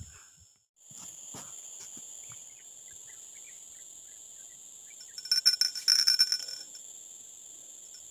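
Insects buzzing steadily in a high, even drone, with a run of sharp clicks and ringing clinks about five to six and a half seconds in.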